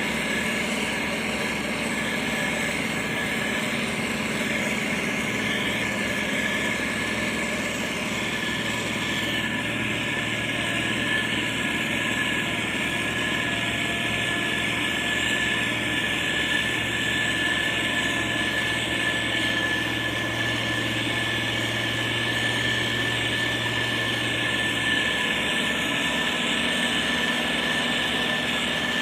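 Diesel engine of heavy road-building machinery running steadily, with a steady high-pitched whine over it. A deeper hum joins about a third of the way in and fades near the end.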